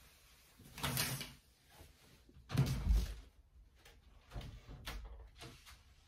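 A curtain pulled along its rail, then a French window's handle turned and its casement swung open with a thump, followed by a few softer knocks and rustles.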